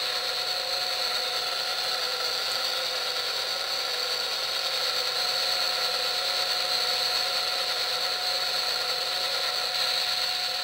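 Digitrax sound decoder in a Kato SD70MAC model locomotive playing a diesel locomotive's air compressor sound over the running engine, through its Soundtraxx Mega Bass speaker. A steady mechanical sound with no deep bass.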